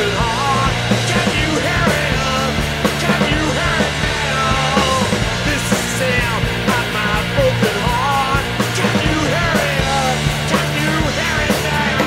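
Music: a loud rock-styled track with a gliding lead melody over a steady bass line.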